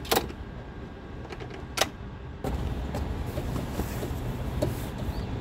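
Homemade wooden pull-out bed extension sliding out of the back of a camper van, with two sharp knocks in the first two seconds. About halfway through, a louder steady low rumble of background noise sets in, with light handling ticks.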